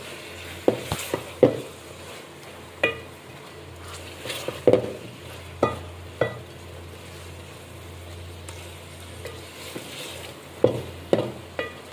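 Mutton and tomato masala sizzling in an aluminium pot while it is stirred and turned with a ladle, the ladle knocking and scraping against the pot at irregular moments over a steady frying hiss and low hum. This is the bhuna stage, the meat being fried down in its spices.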